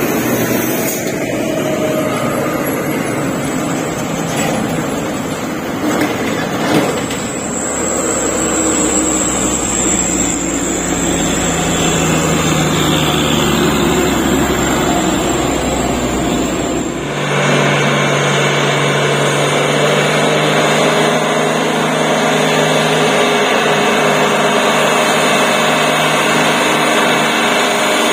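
Heavy trucks' diesel engines working hard up a steep hill, passing close by. About two-thirds of the way through the sound changes abruptly to another truck's engine running steadily under load.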